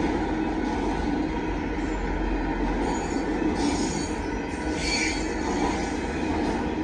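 Union Pacific freight train of autorack cars rolling past at a road crossing: a steady rumble of wheels on rail, with high-pitched wheel squeal twice near the middle.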